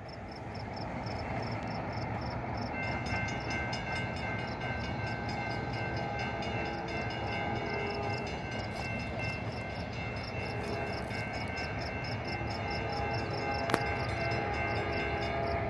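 Horn of an approaching Norfolk Southern diesel locomotive, still out of sight, sounding several long blasts over a steady rumble. Crickets chirp evenly throughout, and a single sharp click comes near the end.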